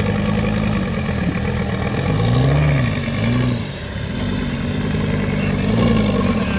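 Off-road rock-crawling rig's engine running on the trail, its revs rising and falling a few times as the throttle is worked.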